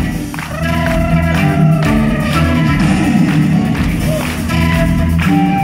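Live rock band playing: flute carrying a held melody with vibrato over electric guitar, bass guitar and drums.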